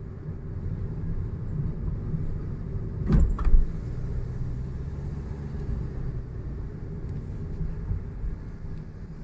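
A car driving along a road: a steady low rumble of engine and tyre noise, with two sharp knocks about a third of a second apart a little over three seconds in.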